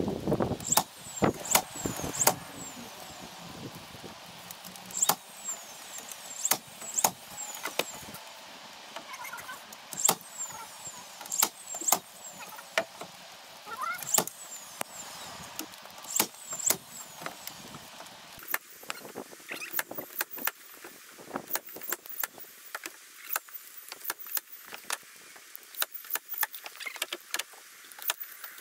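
DeWalt cordless battery nail gun firing nails through feather edge boards into the fence rails: sharp snaps in clusters of two or three a few seconds apart, coming faster in the second half.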